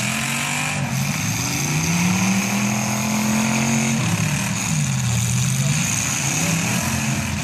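Demolition-derby truck engines revving. The pitch climbs and holds, drops about five seconds in, then climbs again near the end.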